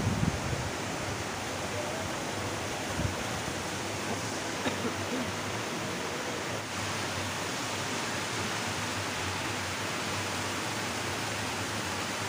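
Water pouring steadily over a small concrete weir into a shallow stream, a constant rushing. A few brief soft knocks in the first three seconds.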